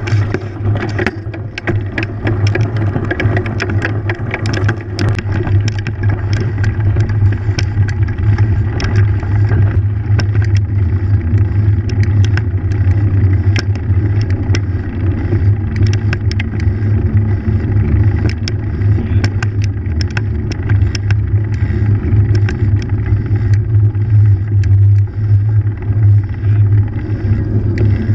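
Mountain bike rolling over gravel and then along a wooden plank bridge, heard from a camera mounted on the bike: a steady low rumble of tyres and wind, with frequent clicks and rattles from the bike jolting over the surface.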